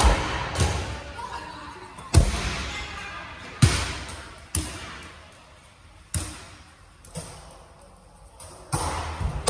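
Dodgeballs striking the floor, walls and players in a large echoing hall: about nine sharp thuds at uneven intervals, each ringing away before the next.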